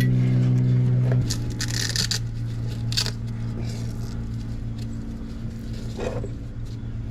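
Light clinks and scrapes of metal parts and tools being handled during reassembly of a macerator toilet, over a steady electrical hum that drops in level about a second in.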